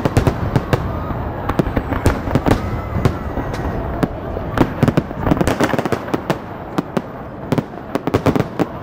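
Fireworks display: aerial shells bursting in rapid, overlapping bangs with crackling, the bangs coming in clusters at the start, about five seconds in and near the end.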